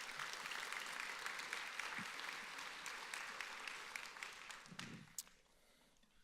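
Congregation applauding, fading away about five seconds in.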